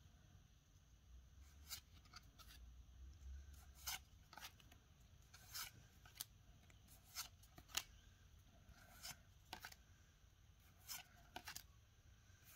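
Pokémon trading cards sliding against each other as they are flipped one by one through a handful: about a dozen quick, faint swishes and flicks at irregular intervals.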